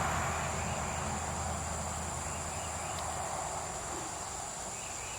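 Insects droning steadily at a high pitch, while the rush of a passing vehicle fades away over the first couple of seconds.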